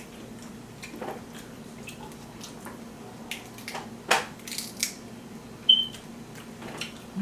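Seafood boil being eaten by hand: scattered cracks and clicks of crab shells breaking, with wet squishing sounds and a louder crunch about four seconds in.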